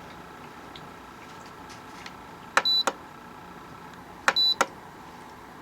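Air Innovations humidifier's control-panel beeper giving two short high beeps about a second and a half apart, each with a click of its button either side. The key beep has just been switched back on.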